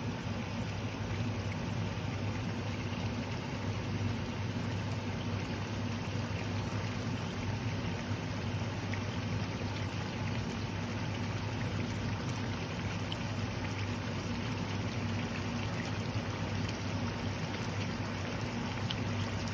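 Red chicken curry simmering in a nonstick wok, bubbling steadily with a few faint pops, over a steady low hum.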